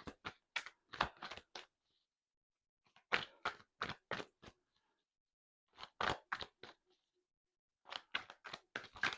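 A deck of tarot cards being shuffled: four short runs of sharp card clicks and flicks, a couple of seconds apart, with quiet between them.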